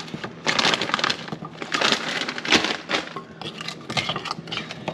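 Meatballs tumbling out of a plastic bag into a pot of sauce: irregular knocks and clinks against the pot and each other, with the bag crinkling, then a hand shifting them about in the pot.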